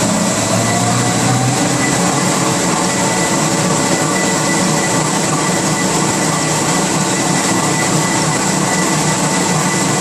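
Wrapping machine running steadily: a continuous mechanical drone with a thin, steady high whine over it.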